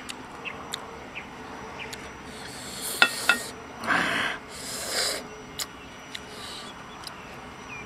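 Kitchen knife cutting and scraping a green banana held in the hand: a few sharp light clicks and several short rasping strokes.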